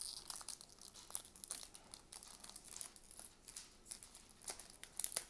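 Shiny foil wrapper of a trading card pack crinkling and tearing as fingers pick at its sealed top seam, in many small crackles, with the loudest ones near the end.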